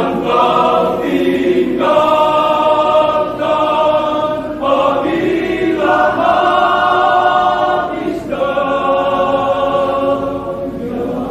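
Men's choir singing in held full chords, the phrases changing every two to three seconds.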